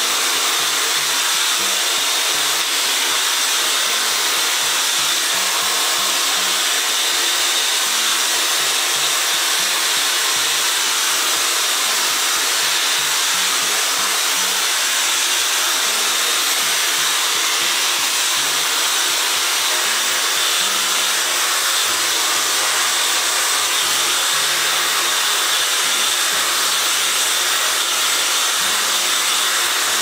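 Dyson Supersonic hair dryer running steadily with its comb attachment, blowing a constant rush of air.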